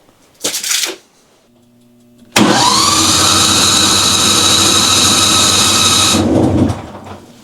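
John Deere Gator XUV550's starter cranking the engine for about four seconds, a whine that rises and then holds steady, without the engine catching; the owner suspects a stuck carburetor solenoid. A brief clunk comes before it.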